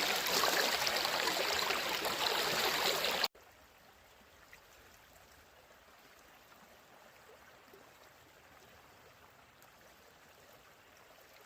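Rushing water of river rapids, a steady hiss that cuts off abruptly about three seconds in, leaving near silence.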